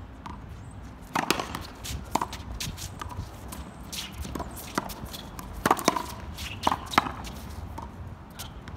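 Outdoor racquetball rally: a string of sharp, irregularly spaced knocks as the rubber ball is struck by racquets and hits the concrete wall, the loudest about two thirds of the way through, with shoes scuffing on the court.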